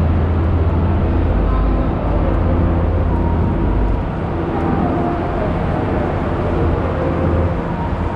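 Steady low rumble of travel noise, road and wind noise while moving, heavy in the bass and unbroken.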